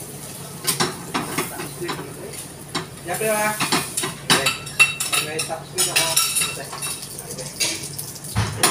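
Metal tongs clanking and scraping against a wok as food is stir-fried over a gas burner, in irregular clatters, with food sizzling underneath.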